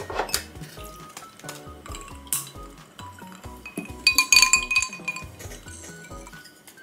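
Tableware clinking over background music: a small ceramic dish knocks on the table at the start, and about four seconds in a stemmed drinking glass gives a short cluster of ringing clinks as it is picked up.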